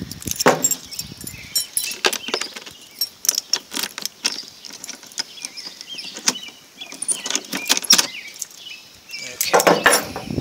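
Keys jangling on a ring while a key is worked into a padlock on the cooler's metal hasp latch, a run of small metallic clicks and rattles, busiest near the end.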